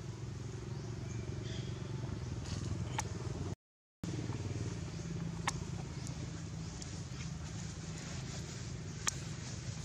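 A small engine running steadily at idle, a low drone with a fast even pulse, with a few short sharp clicks over it. The sound drops out completely for a split second a little past three and a half seconds in.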